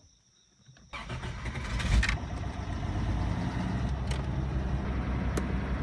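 Toyota FJ60 Land Cruiser's 4.2-litre inline-six (2F) engine starting about a second in, with a loud burst near two seconds, then running at a steady idle.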